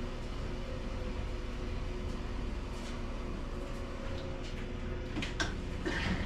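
Steady low machine hum with a few short clicks and knocks about five to six seconds in.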